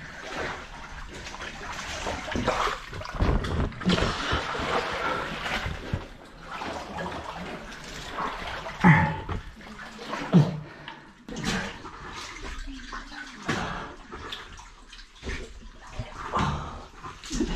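Water sloshing and splashing as people wade and crawl through a chest-deep flooded cave passage, with irregular swishes and a few louder splashes.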